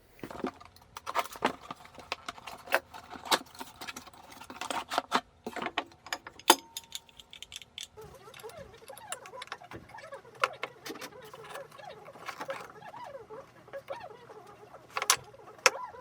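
Irregular clicks and light knocks of small hard objects being handled and set down. After about eight seconds these give way to a softer scraping and rubbing, with a couple of sharper clicks near the end.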